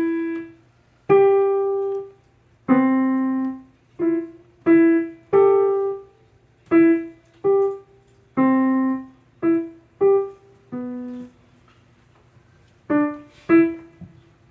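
Piano playing the Ring doorbell chime melody one note at a time, each note struck and left to fade, with a short pause about two-thirds of the way through before the last few notes.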